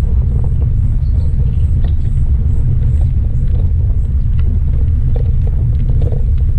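Loud, steady low rumble of a MERIDA mountain bike ride on a paved path: wind buffeting the microphone mixed with tyre roll on the asphalt, with small scattered clicks and rattles from the bike.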